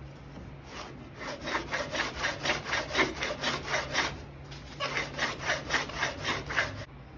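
A hand plane, run on its side along a shooting board, shaving a board in quick, short strokes at about four a second. The strokes come in two runs, with a brief pause just past the middle.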